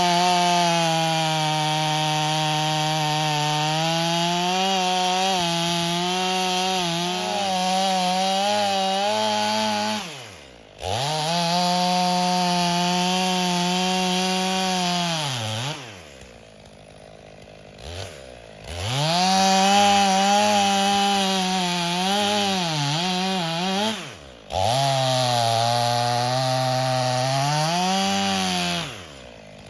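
Stihl MS 500i two-stroke chainsaw bucking logs at full throttle in several cuts, its pitch sagging under load within each cut and dropping away briefly between cuts. The chain has lost its edge, cutting fine powdery chips.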